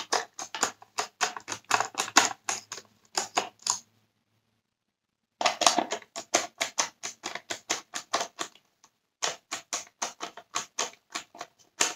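Rapid, even clicking from a hand screwdriver as it tightens screws into the plastic cyclone assembly of a Dyson Cinetic Big Ball vacuum, about four clicks a second. The clicking stops for about a second and a half near the middle, then goes on.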